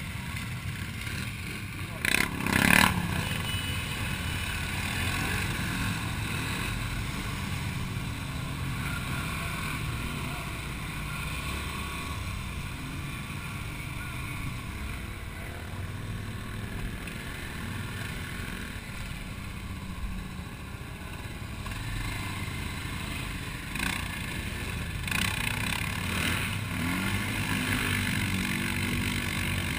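Quad bike (ATV) engine running, heard from on board the moving quad, with a short loud burst about two seconds in and the engine pitch rising as it revs near the end.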